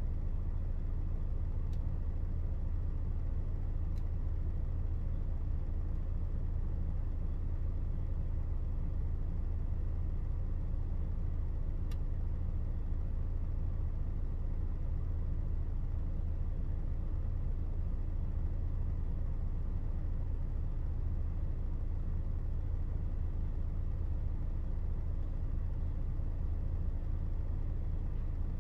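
Steady low rumble of a truck running, heard from inside the cab.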